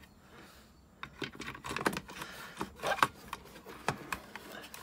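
Black plastic housing of a Concept2 PM3 rowing monitor being handled and turned over on a wooden table: a run of light clicks and knocks with some rustling, starting about a second in.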